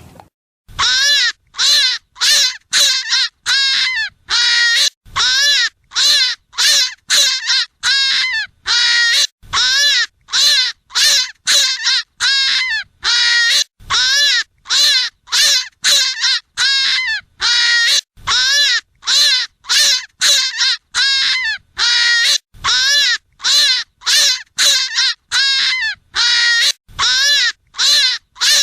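Rabbit hunting call: short, harsh, pitched cries repeated evenly about twice a second, each rising and then falling in pitch.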